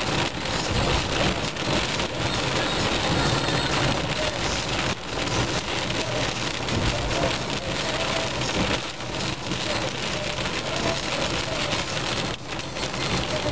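Heavy cloudburst rain beating on the roof and windshield of a moving car, heard from inside the car as a dense, steady hiss.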